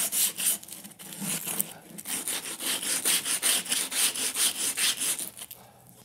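Quick back-and-forth rubbing strokes on the freshly sawn edge of a softwood board, about three to four a second, knocking the slivers off the cut; they stop about five seconds in.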